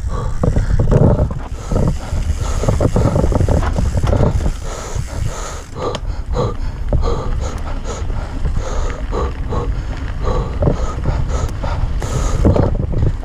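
Riding noise of a Yeti SB150 enduro mountain bike descending a bumpy dirt singletrack, heard from a body-mounted camera: a steady rumble of wind buffeting the microphone and tyres on dirt, with frequent irregular knocks and rattles from the bike over roots and bumps.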